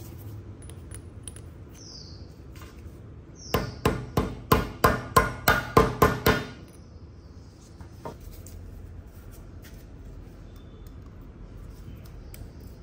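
About a dozen quick hammer taps, roughly four a second, on a metal tube socket set over the drill gearbox's spindle, each with a short metallic ring, driving a part down into place on the spindle.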